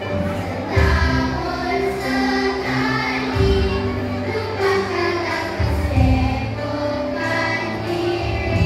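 Children's choir singing in unison over an instrumental accompaniment with low held notes.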